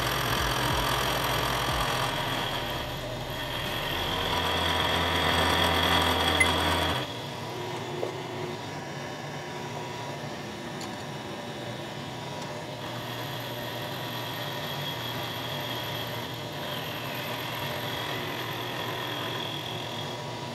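Milling machine running with its end mill cutting the edge of a flat bar clamped in the vise. The cutting is loudest for the first seven seconds or so, then the sound drops suddenly to a quieter steady machine noise.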